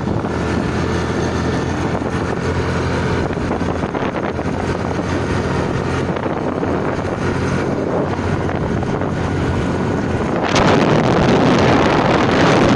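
Small Suzuki motorbike engine running steadily while riding, with wind rushing over the microphone. The wind noise grows louder about ten seconds in.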